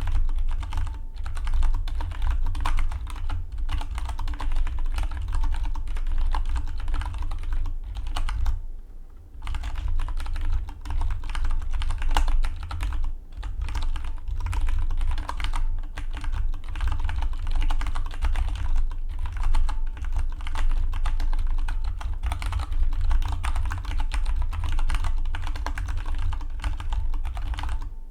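Fast continuous typing on a Dygma Defy split mechanical keyboard: a dense run of key clicks, with a short pause about nine seconds in.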